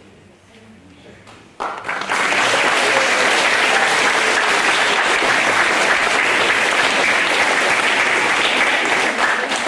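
Audience of students clapping, breaking out suddenly about one and a half seconds in and holding steady, then thinning near the end.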